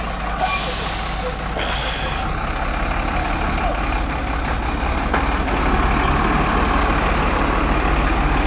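Dump truck's diesel engine running steadily, growing a little louder about halfway through, with a sharp burst of air hissing from its air brakes about half a second in.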